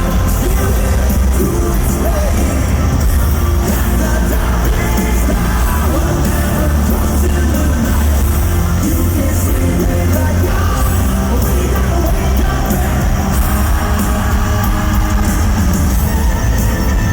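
Live hard rock band playing loud with a singer, heavy bass and drums, heard through an amateur recording from the audience.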